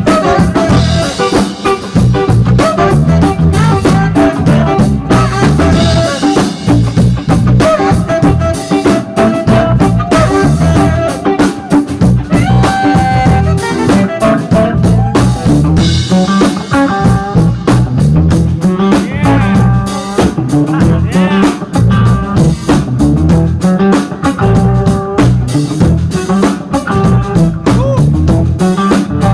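Live instrumental band playing at full volume: electric guitar melody over electric bass and a busy drum kit with rimshots.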